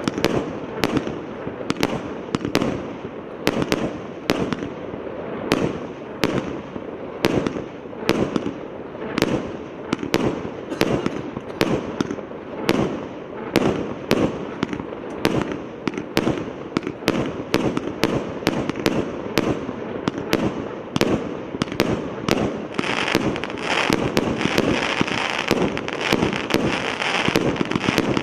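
A 150-shot single-row firework battery (cake) firing shot after shot at an even pace of about two a second. Dense crackling joins in near the end.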